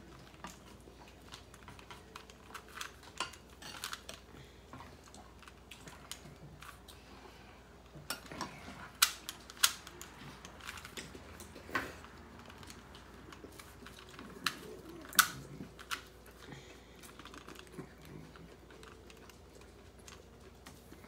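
A plastic Rubik's cube being twisted by hand: irregular clicking and clacking as its layers turn, with a few sharper clacks in the middle.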